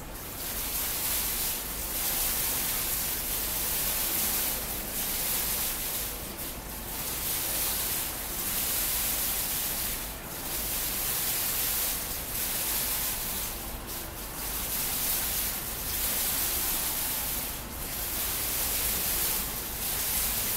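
Digital water-curtain fountain dropping patterned sheets of water droplets from a row of nozzles into its basin: a steady splashing hiss that starts suddenly and swells and dips every couple of seconds as each pattern is released.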